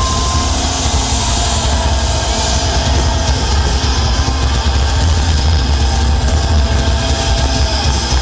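Loud live industrial-metal band playing through a big PA, recorded from the crowd and heavily distorted: a thick, steady bass under long held guitar notes, with no vocals.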